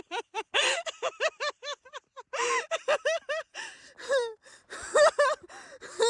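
A person laughing hard: a fast run of short, high, pitched 'ha' bursts, about five or six a second, broken by breathless gasps.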